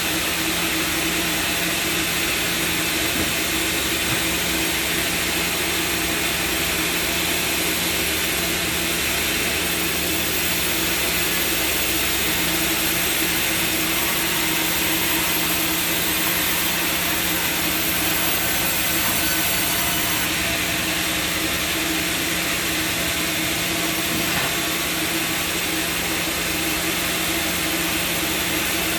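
Sawmill machinery running steadily: a constant mechanical drone with a low hum that does not change.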